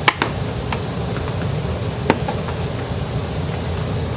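Steady low hum of room air conditioning, with a few sharp clicks near the start and about two seconds in from the handling of sewing machine foot pedal controllers and their cords.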